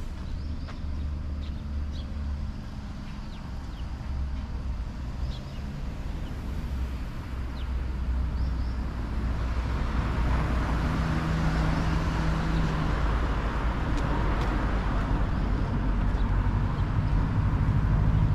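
Outdoor background noise: a steady low rumble with a hiss that grows louder about halfway through, and a few faint, short high chirps in the first half.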